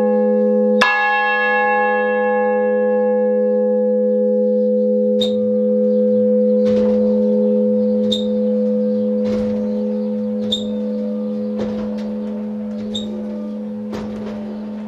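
Large bronze church bell, the Michael bell cast in 1950 by Georg Hofweber, swinging for the pre-ringing before Mass. A loud clapper strike about a second in sets off its deep hum and bright overtones, which ring on. Fainter knocks follow every second or so.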